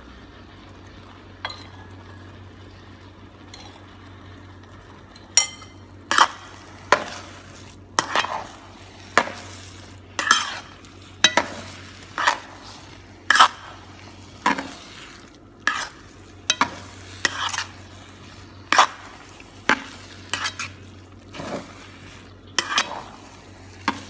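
Stir-frying noodles and vegetables in a frying pan: a metal utensil scrapes and tosses the food about once a second from about five seconds in, over a quiet sizzle and a steady low hum.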